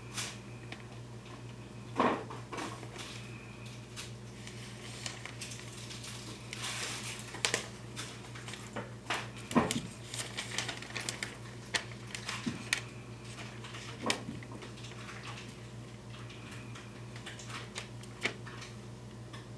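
Fox squirrel clambering and feeding on a hanging wire-cage seed-cake feeder: irregular clicks, scratches and rattles of claws and wire, with gnawing at the seed cake; the sharpest knocks come about two seconds and nine and a half seconds in. A steady low hum lies underneath.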